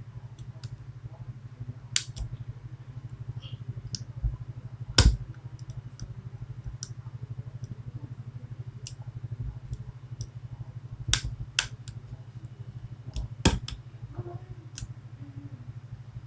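Scattered light clicks and taps of lock picks and a tension tool working a Medeco Biaxial lock, with a few sharper clicks about five, eleven and thirteen seconds in, over a steady low hum.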